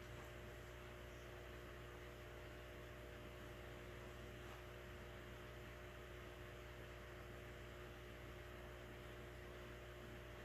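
Steady low electrical hum with a faint hiss underneath, unchanging throughout; nothing else stands out.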